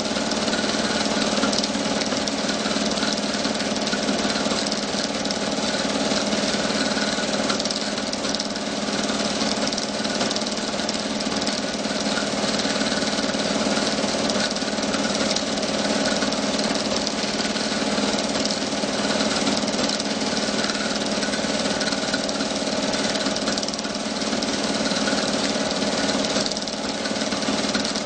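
Super 8 film projector running: a steady motor hum with a constant hiss above it.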